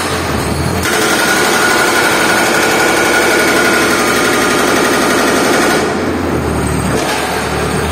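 Excavator-mounted hydraulic breaker hammering into a concrete block: a rapid, steady hammering that starts about a second in and stops near six seconds, over the excavator's engine running.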